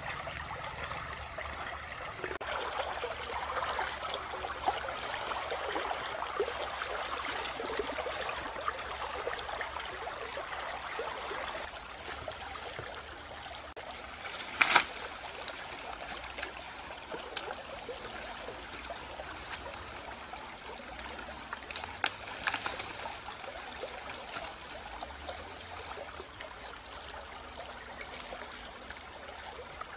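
Shallow stream water trickling and flowing steadily over stones. Two sharp clicks or knocks stand out, about halfway through and again about three quarters of the way in, and a few short high chirps are heard.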